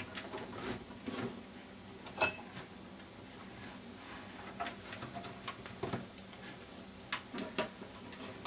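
Plastic four-pin Molex power connectors and their wires being handled and pushed onto optical drives inside a PC case: quiet, scattered clicks and taps, the sharpest about two seconds in.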